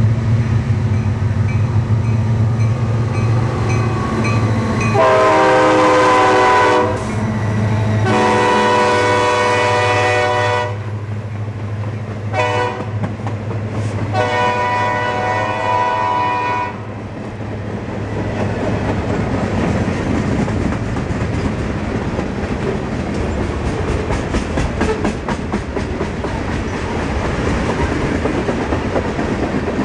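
Diesel freight locomotives approaching with their engines running, then an air horn sounding long, long, short, long, the grade-crossing signal. After it, the freight cars roll past with a steady rhythmic wheel clatter over the rail joints.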